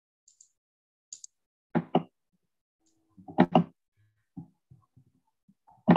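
A few short knocks and bumps picked up over a video-call microphone. The loudest is a pair about two seconds in, with another cluster about three and a half seconds in.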